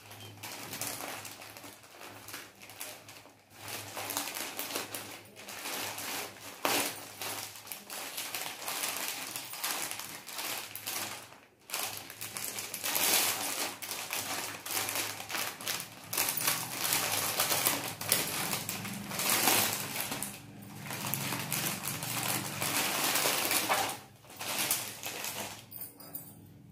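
Plastic courier mailer and clear poly bag crinkling and rustling in irregular bursts as they are opened and a packed garment is handled, dying down near the end.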